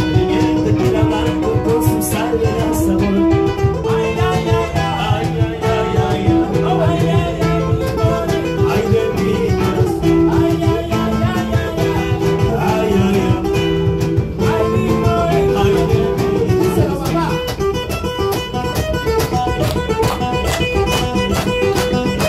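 Live acoustic guitar and electric guitar played together, with a man singing into a microphone. In the last few seconds listeners clap along in time.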